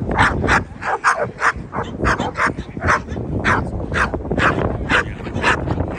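A dog barking over and over, short high-pitched barks at about two or three a second.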